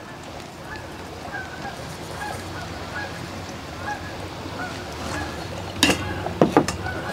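Birds calling faintly again and again in the background. About six seconds in come a few sharp crackles and rustles as a gloved hand spreads crushed eggshell into the shredded-paper bedding of a worm composting bin.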